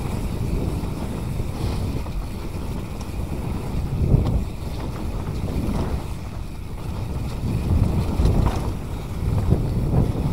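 Wind buffeting an action camera's microphone as a mountain bike rolls fast down a dry dirt singletrack, over a steady low rumble of tyres and bike. A few short knocks and rattles come as it hits bumps in the trail.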